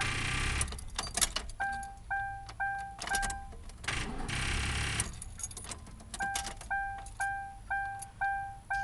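2001 Ford Crown Victoria's warning chime dinging steadily, about two dings a second. It breaks off twice for short bursts of harsh mechanical noise with clicks, near the start and again about four seconds in, as the car with a dead battery fails to start.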